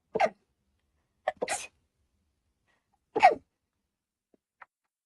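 A young woman's wet allergy sneezes, three in a row, each short and sudden, the third the loudest.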